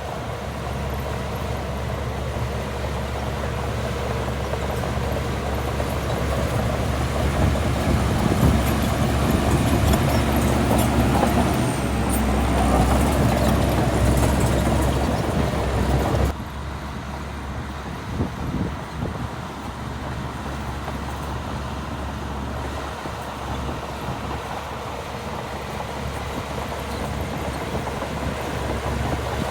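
Heavy diesel engine of earthmoving machinery running steadily, growing louder toward the middle, then dropping abruptly to a lower level about sixteen seconds in.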